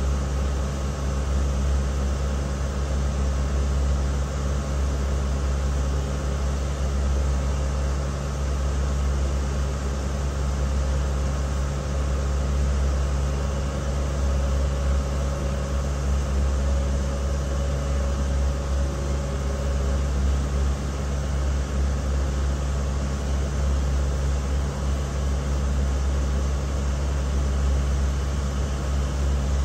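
Passenger boat's engine running steadily while under way, a constant low drone with an even rush of noise over it.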